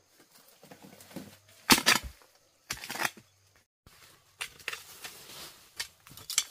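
Hoe chopping into forest soil and roots while digging out a wild yam: a few sharp strikes, the loudest about two seconds in, then a run of lighter knocks, with brush and leaves rustling between.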